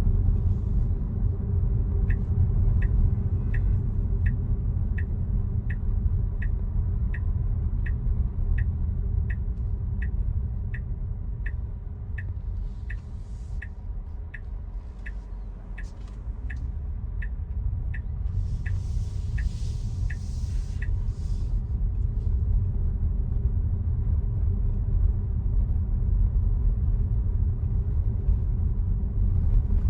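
Car driving, heard from inside the cabin: a steady low road and tyre rumble, with the turn-signal indicator ticking evenly, about three ticks every two seconds, for most of the first twenty seconds before it stops. A few short hissing swishes come in the middle.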